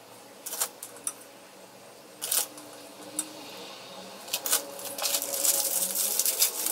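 A few light clicks and taps as biscuits are handled and set down, then from about five seconds in a plastic Chocolinas biscuit packet crinkling and rustling as it is opened.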